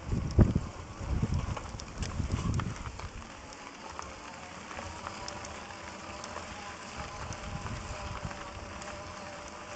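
Electric bike riding over a gravel dirt track: wind buffets the microphone in gusts for the first three seconds, then the tyres crackle steadily over the gravel under a faint steady whine from the electric motor.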